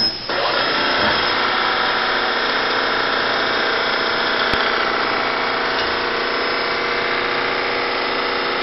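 Siber Hegner RB-1 CNC bed mill running, its variable-speed milling head on a 3-horsepower drive giving a steady machine hum with several even tones. It dips for a moment at the start, then holds steady.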